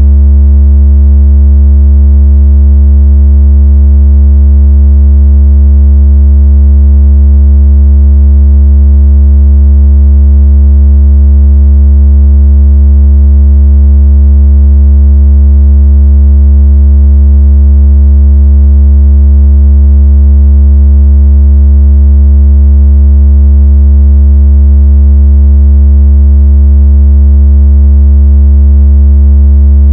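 Loud, steady, deep synthesized tone with a buzzing edge from its overtones, running without change. It is a water-ejection speaker tone, played to shake water out of a phone speaker.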